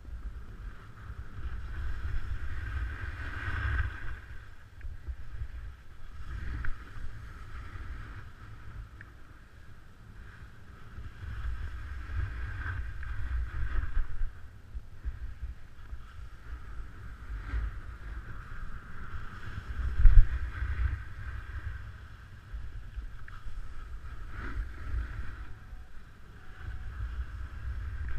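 Snowboard sliding and carving down a groomed piste: the board's base and edges hiss and scrape over packed snow, swelling and fading with each turn, under steady wind rumble on the action camera's microphone. A sharp knock about two-thirds of the way through is the loudest moment.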